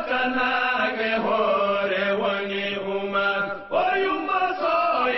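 Voices singing a slow religious chant in long, drawn-out held notes. The chant breaks off briefly about three and a half seconds in, then goes on.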